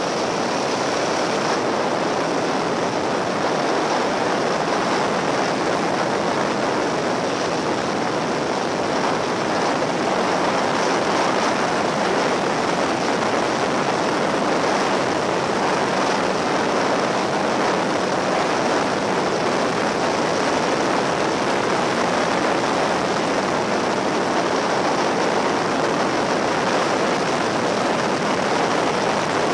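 Steady wind and road noise on a camera mounted on a Yamaha XT1200Z Super Ténéré motorcycle riding at steady speed, with the bike's parallel-twin engine running under it.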